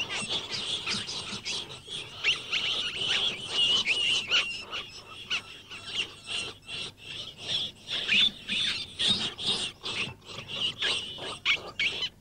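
Many rats squeaking together: a dense, overlapping chatter of short, high squeaks.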